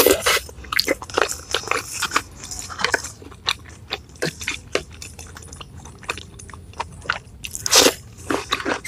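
Close-miked chewing and crunching of food, with many quick, sharp crunches of mouthfuls of raw petai beans and spicy meatball soup. There is a louder burst near the end.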